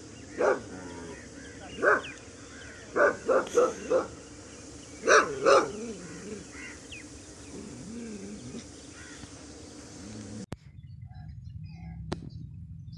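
A dog barking: about eight short barks in the first six seconds, three or four of them in quick succession around three seconds in, then the barking stops.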